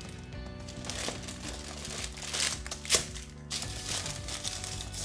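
Baking paper crinkling and rustling as hands smooth it flat into a springform tin, with one sharper, louder crackle about three seconds in. Background music plays underneath.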